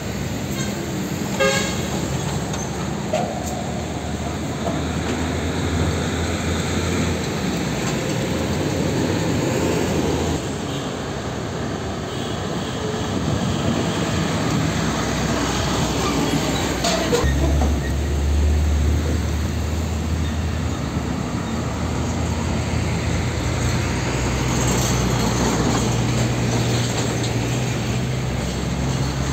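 Heavy diesel truck engines running as trucks drive slowly past: a MAN tanker truck, then older cab-over container tractor units. A deeper, louder engine note comes in about halfway through as another truck pulls through.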